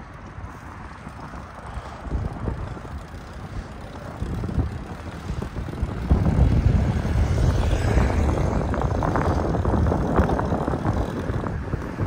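Wind buffeting the microphone while riding: a low, uneven rumble that grows louder about halfway through.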